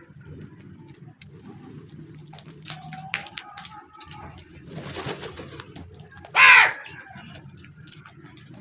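Crow calling: one loud, short, harsh caw about six and a half seconds in, over a low steady murmur of other bird sounds and a few scattered short calls and clicks.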